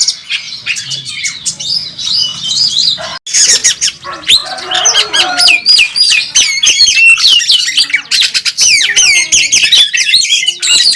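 Oriental magpie-robin (kacer) in full aggressive song: a rapid, nonstop stream of sharp whistles, chirps and harsh notes with quick rising and falling glides, packed with phrases mimicked from other birds. The song breaks off for an instant about three seconds in, then carries on just as densely.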